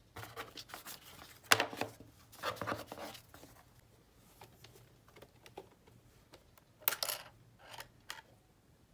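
Plastic wireless keyboard being handled and moved about in its box: rustling with light plastic knocks and clicks, the loudest a sharp knock about a second and a half in, and another clatter about seven seconds in as it is set down face-down.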